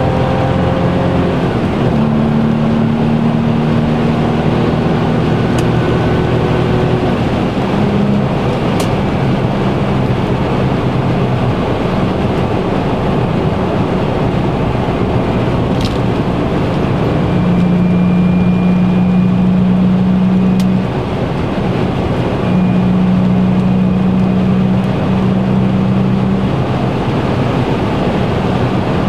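Car cruising at motorway speed, heard from inside the cabin: a steady engine drone over tyre and road noise. The engine note grows louder for a few seconds past the middle, dips briefly, then holds again.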